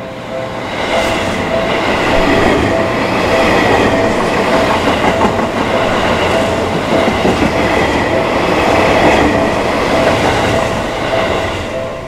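Seibu 001 series Laview limited-express train passing through a level crossing at speed. Its wheel and rail noise swells about a second in and eases near the end, while the crossing's electronic warning bell keeps ringing in a repeating two-tone pattern.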